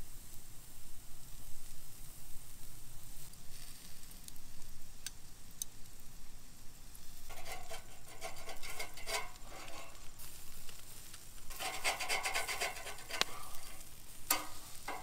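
Pork burger patties sizzling on a wire grill grate over charcoal. A metal spatula scrapes and rattles on the grate as the patties are flipped, in two busy spells: about seven seconds in and again about eleven and a half seconds in.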